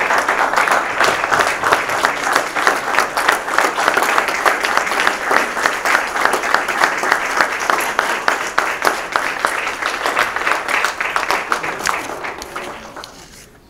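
Audience applauding: a steady round of clapping that dies away near the end.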